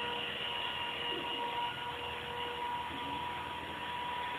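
Walkera Creata 400 radio-controlled model helicopter in flight: a steady whine of its motor and rotor, holding one pitch throughout.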